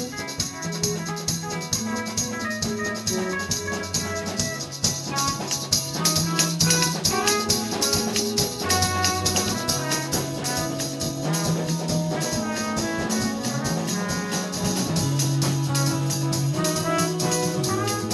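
Jazz-fusion band playing an up-tempo groove: drum kit with fast, even cymbal strokes over a moving bass line, with keyboard and horn lines on top.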